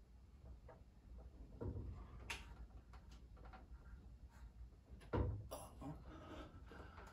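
Scattered light clicks and knocks of parts being handled, with a dull thump about five seconds in.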